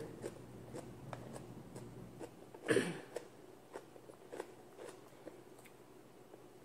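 Close-miked eating: soft chewing with small mouth clicks and smacks as rice and sautéed pechay are eaten by hand, with one louder smack or bite about three seconds in.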